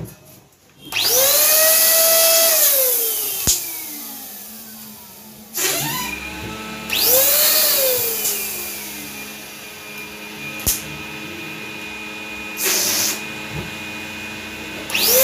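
Electric balloon pump running in about five bursts, each starting with a rush of air and a motor whine that rises in pitch, then sinks slowly while it runs. Two sharp clicks fall between the bursts.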